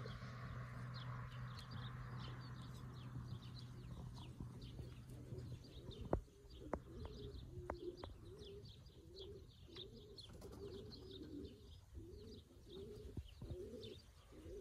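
Pigeons cooing faintly and repeatedly, about one coo a second from around seven seconds in, with small birds chirping in quick high notes throughout. A low steady hum fades out in the first half, and a few sharp clicks come around the middle.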